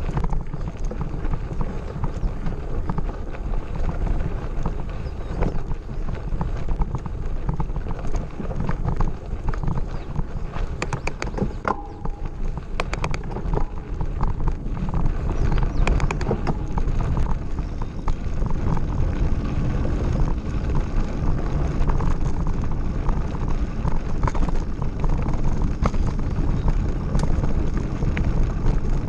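Mountain bike being ridden over a gravel forest road: a steady low rumble of tyres and wind on the microphone, with scattered rattling clicks from the bike and loose stones, thickest about ten to seventeen seconds in.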